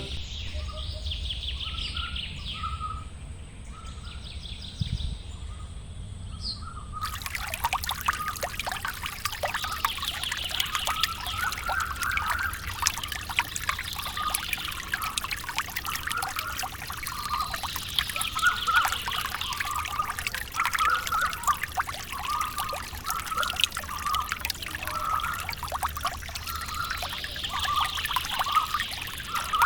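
Birds chirping over and over in short calls, with a trickle of running water that cuts in about seven seconds in.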